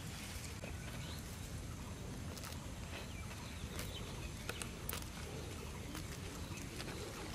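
Jute leaves being picked by hand: scattered light snaps and rustles over a steady low rumble, with faint clucking of fowl in the background.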